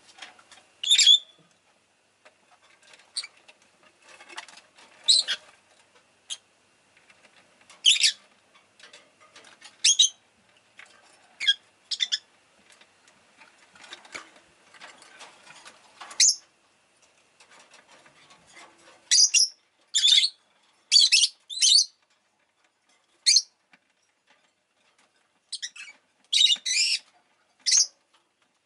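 Rosy-faced lovebird giving short, sharp chirps at irregular intervals, with a quick run of chirps a little past the middle and another near the end. Faint rustling and scratching between the calls.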